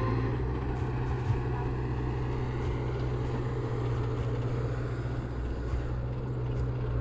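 Heavy equipment's diesel engine running steadily, a constant low hum.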